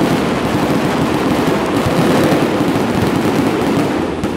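Fireworks display at its height: a dense, continuous barrage of overlapping bangs and crackles, easing slightly near the end.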